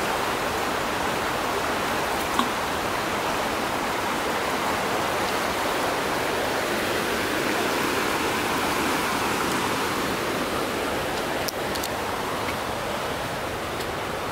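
Fast-flowing river rushing over a shallow rocky stretch: a steady rush of running water.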